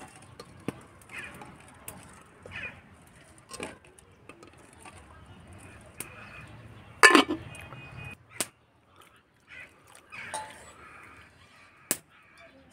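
Eggs clinking and knocking against the inside of an aluminium pressure cooker and metal cookware as they are set in, a few sharp knocks spread out with the loudest about seven seconds in. Birds call in the background.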